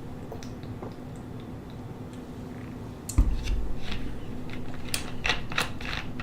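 Quiet handling noises: a low thump about three seconds in, then a string of sharp clicks and taps.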